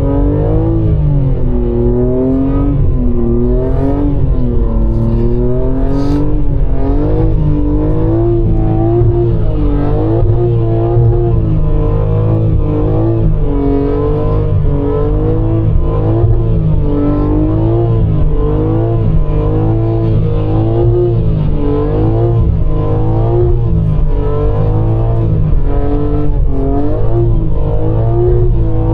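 BMW M3's twin-turbo straight-six engine running with its revs rising and falling, with music playing in the car.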